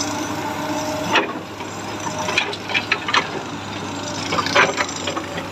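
Komatsu PC210 excavator running with its hydraulics working as the boom is raised. A steady whine stops about a second in, and scattered sharp clicks and knocks follow over the engine's steady hum. The boom is moving again at a speed that is now called all right, after a slow-operation fault.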